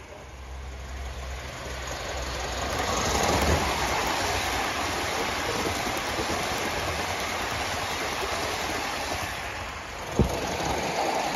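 Live-steam model train (an Aster B1 locomotive with its coaches) running on a garden railway, its wheels rolling on the rails in a steady rush that grows louder over the first few seconds as it comes close. A single sharp knock about ten seconds in.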